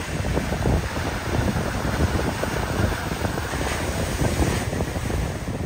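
Sea waves washing onto a rocky shore, with wind gusting on the microphone. A brighter, hissing wash of surf comes about four seconds in.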